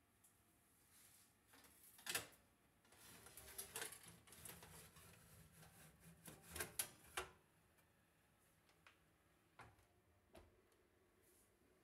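Clinks and scrapes of a foil-wrapped metal cake ring being set onto a metal baking tray in an oven, with sharp clicks a little after two seconds and the loudest ones around six to seven seconds in. A few faint knocks follow near the end as the oven door is closed.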